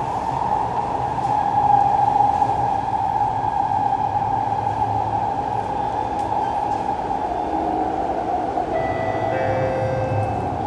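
Interior of a Siemens C651 metro train running through a tunnel: the steady roar of wheels, running gear and tunnel air, with a low rumble beneath. From about eight seconds in, several thin whining tones from the train's traction equipment join in.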